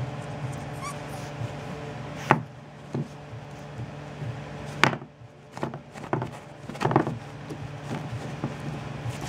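A Boston Terrier puppy playing with a hard nylon chew bone: a few sharp knocks and clacks as the bone is knocked about on a wooden floor, the loudest three spaced about two seconds apart, over a steady low hum.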